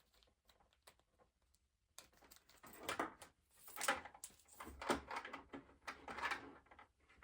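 Lamp assembly parts being handled: irregular small clicks and light knocks of hardware such as washers, bushings and the bracket, starting about two seconds in.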